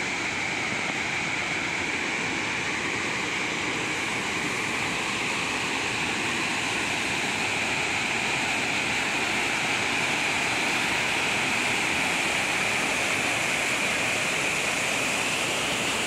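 Waterfall rushing steadily as falling water cascades over rocks, growing a little louder toward the end.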